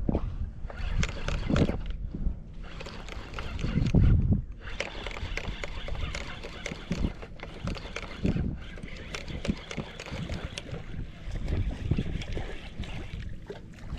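Water sloshing and splashing around a small boat, with scattered clicks and knocks. There are two low rumbles, one at the start and one about four seconds in.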